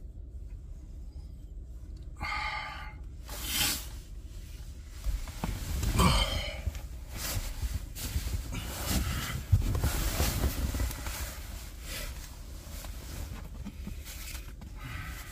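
A man groaning as he wakes and stretches, twice, followed by a stretch of crinkly rustling from a nylon sleeping bag as he shifts and sits up.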